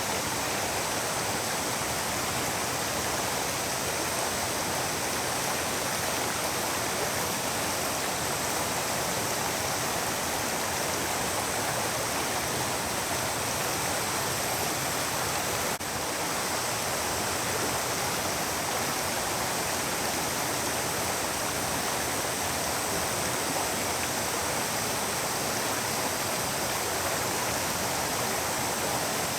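River water flowing and rushing in a steady, even wash of sound, with a brief break about halfway through.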